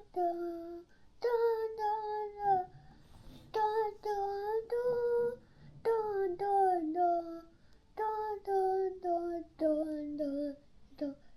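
A young girl singing a tune to herself in short phrases of held notes, with brief pauses between them.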